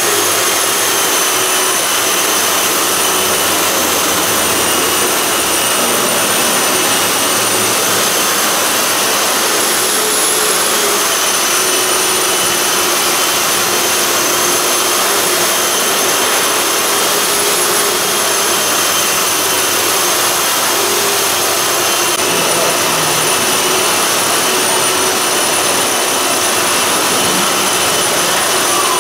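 A motor-driven machine running steadily and loudly: a constant rushing noise with a high whine that wavers slightly in pitch, unbroken throughout.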